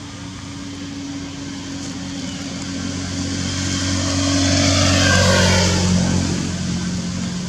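A motor vehicle passing by. Its engine and road noise grow louder to a peak about five seconds in, then its pitch drops as it goes past and it fades.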